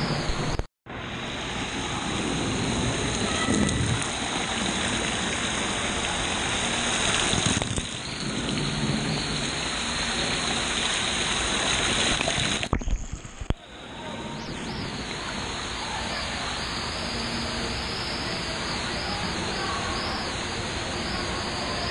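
Pool water splashing and rushing right against a camera held at the water's surface, with water pouring from an overhead spray pipe; a dense, steady wash of noise that breaks off briefly twice.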